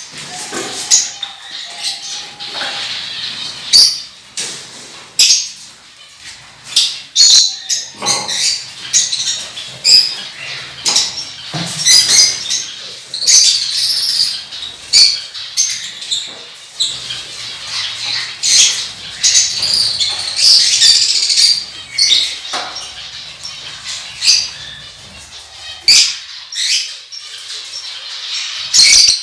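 Pet parrots chirping and fluttering their wings, with many short, sharp sounds coming irregularly.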